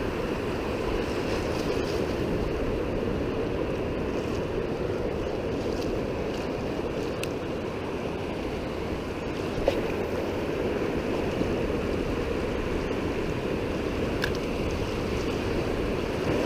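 Ocean surf washing steadily on a sand beach, with some wind on the microphone.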